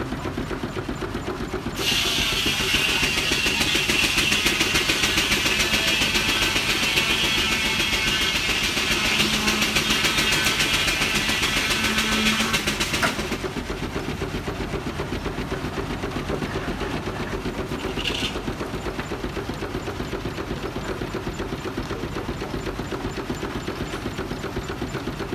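1924 Frick portable steam engine running steadily with a regular beat, belt-driving a sawmill. From about two seconds in to about thirteen seconds in, the saw cuts through a log with a loud high whine, then drops back to running free. A short bite into the wood comes near eighteen seconds.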